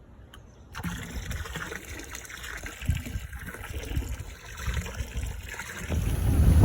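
Water trickling and lapping in the shallows, with uneven low splashes; a louder rumble builds near the end.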